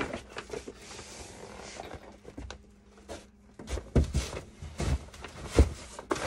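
Rustling of a fabric carry bag, then a series of knocks and bumps as the bagged folding table is pushed into a cabinet, the loudest knock near the end.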